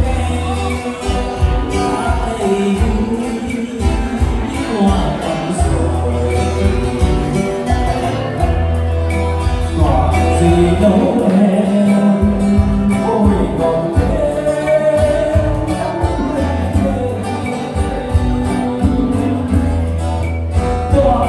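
Amplified music: a singer with guitar over held bass notes, played through a stage sound system.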